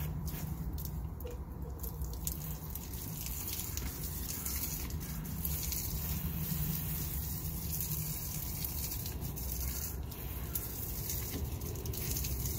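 Garden hose spraying a stream of water that patters steadily onto a gravel driveway.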